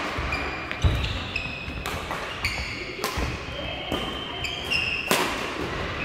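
Badminton doubles rally on an indoor court: sharp cracks of rackets striking the shuttlecock, the loudest about five seconds in, with court shoes squeaking on the floor between hits.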